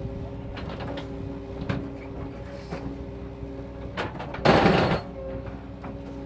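Excavator engine running steadily under load, with scattered knocks and a loud half-second rush of noise about four and a half seconds in.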